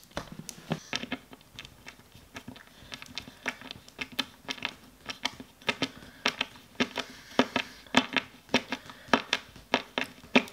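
A hand screwdriver driving a screw into a flat-pack particleboard panel, making an irregular run of sharp clicks, a few a second, as it is turned.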